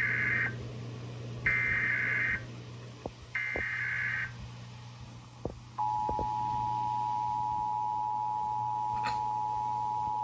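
Emergency Alert System test tones: three bursts of the digital SAME header, each about a second long, with a few faint clicks between them. About six seconds in, the steady two-tone EAS attention signal (853 and 960 Hz together) starts and holds.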